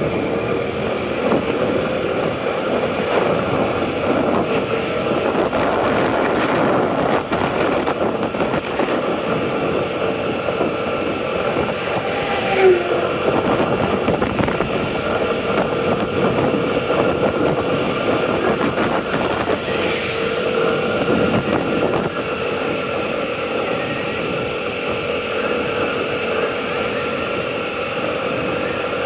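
Motorbike riding at a steady speed: its engine hums evenly under a steady rush of wind and road noise. There is one brief louder sound about halfway through.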